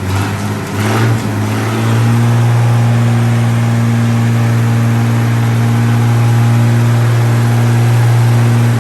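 Old Chrysler industrial gasoline engine running: a brief rev about a second in, then held at a steady fast run that drops away suddenly near the end.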